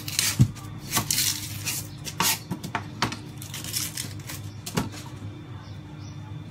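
Chef's knife cutting an onion on a cutting board: a few sharp, irregular knocks of the blade and onion on the board, with short crackling rustles of the dry onion skin being handled and peeled.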